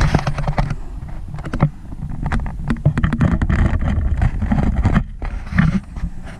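Vehicle cabin while driving over rough ground: a steady low engine and road rumble with many short knocks and rattles as it bumps along.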